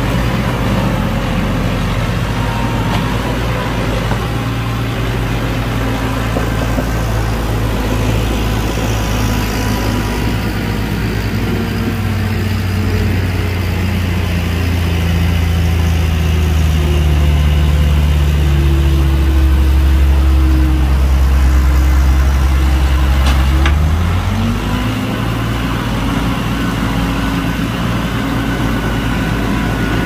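Heavy diesel earthmoving engine running steadily. About halfway through its pitch slowly sinks as it grows a little louder; about three quarters in the pitch climbs quickly back up and holds.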